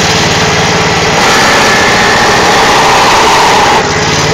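Small pull-start gasoline engine of a homemade wood splitter running loudly and steadily. It picks up slightly about a second in and dips briefly near the end.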